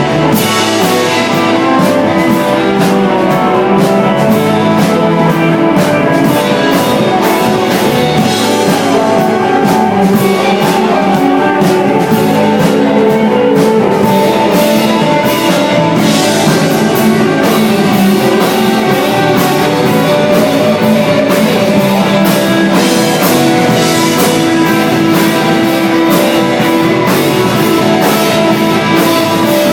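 Live instrumental desert rock played by a band of electric guitar, two bass guitars and drum kit, loud and steady, with cymbals and drums struck in a regular rhythm.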